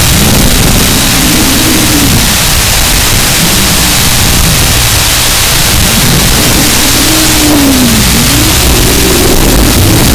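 Small brushless motors and propellers of an iFlight TurboBee 120RS micro FPV quad whining, rising and falling in pitch several times as the throttle changes, under a loud steady hiss.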